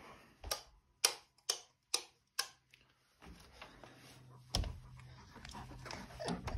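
Footsteps on a hard floor: five sharp, evenly spaced steps about two a second, then a single knock about four and a half seconds in as the glass door is opened, followed by faint shuffling.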